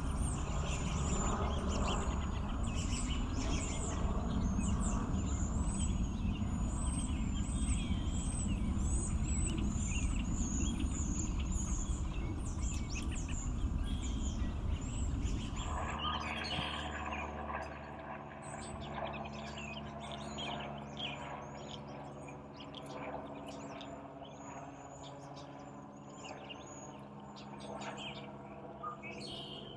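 A flock of cedar waxwings giving many short, high-pitched calls, overlapping and repeating throughout, over a low background rumble that gives way to a steadier low hum about halfway through.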